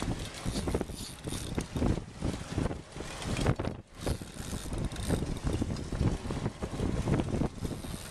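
Wind buffeting the microphone on a boat at sea, an irregular rumble mixed with camera handling noise. It drops out briefly about four seconds in.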